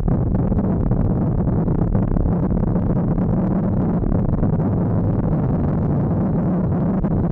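Yamaha XTZ1200 Super Ténéré's parallel-twin engine running steadily under way, mixed with wind noise and the rush of tyres on loose gravel.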